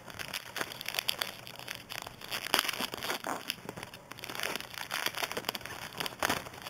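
Crinkling and rustling of a trading-card pack wrapper being handled, a dense run of irregular crackles.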